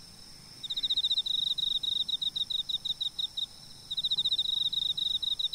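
Insect chirping, likely a cricket: quick trains of pulses at one high pitch, starting about two-thirds of a second in, with a short pause around three and a half seconds.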